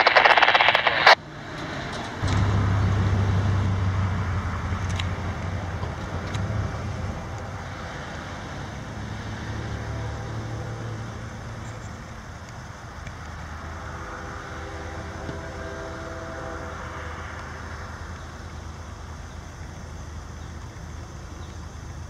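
Burst of scanner radio static that cuts off about a second in, then a low steady rumble of an approaching GE ES40DC diesel-electric freight locomotive, strongest early and slowly fading.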